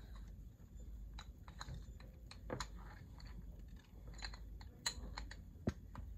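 Faint, irregular clicks and taps of a brushless sewing-machine servo motor's plastic and metal parts being handled and fitted together by hand.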